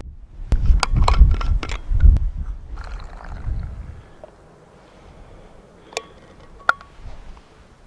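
Stainless steel vacuum flask being handled and unscrewed: a quick run of clicks and scrapes over low wind rumble on the microphone in the first couple of seconds, then two light metallic clinks with a short ring about six seconds in.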